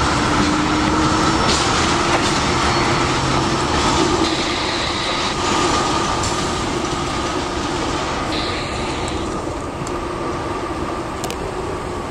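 Freight train's tank cars rolling past on the rails: a steady rumble of steel wheels on track with a faint held ringing tone, slowly getting quieter.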